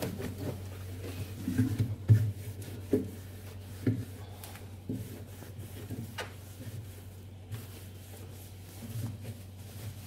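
Damp cloth rubbing and wiping over the plastic walls and shelf rails inside a refrigerator, with a few light knocks, the loudest about two seconds in, over a steady low hum.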